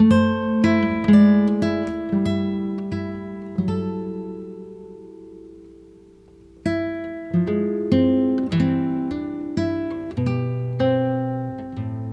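Background music: an acoustic guitar playing slow plucked notes that ring out. About midway the playing pauses and the notes fade for a couple of seconds before the plucking resumes.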